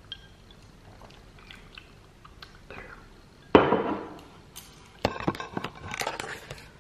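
A drinking glass set down hard on a table about halfway through, a single loud clink-knock that rings off briefly, after a few faint clinks while sipping. Then rustling and knocking of the phone being picked up and handled.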